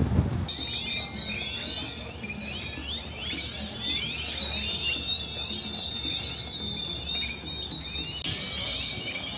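Many birds chirping and whistling together, short overlapping calls over a steady high-pitched tone, with a low rumble underneath.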